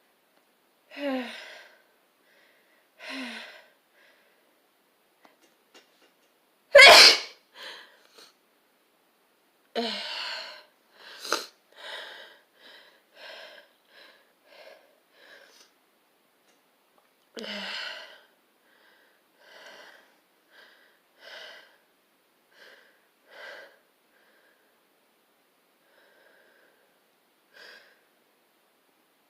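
A person sneezing over and over in a fit. The loudest and sharpest sneeze comes about seven seconds in, with more strong sneezes around ten to eleven seconds and near eighteen seconds, and shorter, quieter sounds between them.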